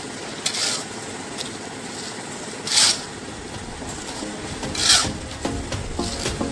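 Three short rasping scrapes about two seconds apart over a steady background noise, with music coming in near the end.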